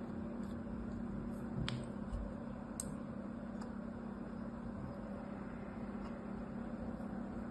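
Kinetic sand being pressed and smoothed into a plastic mould by hand, with a few faint clicks, over a steady low hum.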